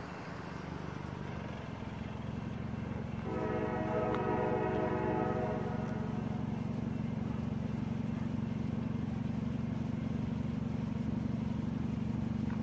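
Diesel locomotive approaching with a low engine drone that slowly grows louder, and one long blast of a five-chime Nathan K5LA air horn, from CSX GP40-2 #6979, about three seconds in.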